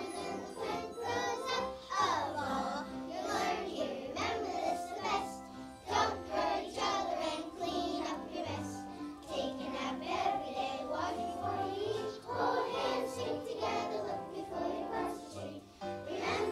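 A group of young children singing a song together over accompanying music with a steady beat.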